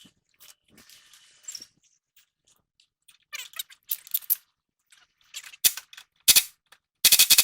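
Scattered clicks and a few squeaks of tools on metal, then two sharp knocks. Near the end an impact wrench breaks into loud, rapid hammering on a tie rod end nut, and the ball stud spins with the nut instead of tightening.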